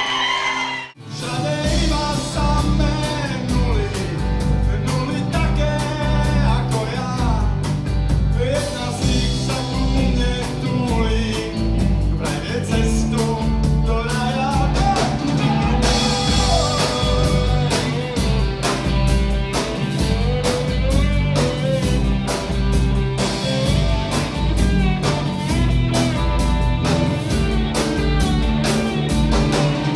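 Live blues-rock band playing: electric slide guitar on a Stratocaster-style guitar gliding between notes over bass and drums, with a voice singing. The music cuts in after a brief drop about a second in.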